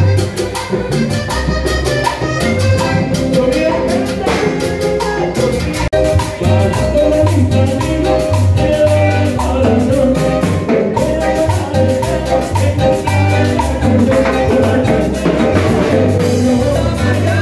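Live band playing upbeat Latin tropical dance music, with timbales and drum kit over a pulsing bass line, keyboard and a metal scraper. There is a momentary break in the sound about six seconds in.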